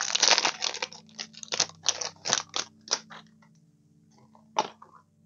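Clear plastic packaging crinkling and rustling as it is handled and pulled open by hand. The crinkling thins out after about three seconds into a few light ticks and taps, the sharpest about four and a half seconds in.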